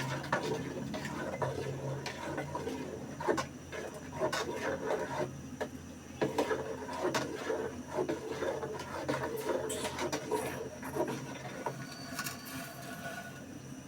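Kitchen food preparation: utensils scraping, rubbing and knocking against pots and a wooden surface, with many irregular light knocks throughout.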